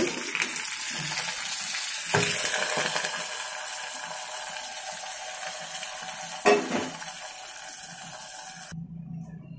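Mustard seeds, garlic, onion and curry leaves sizzling in hot oil in a pan as a tempering (popu), with two short knocks, the louder about six and a half seconds in. The sizzle stops abruptly near the end.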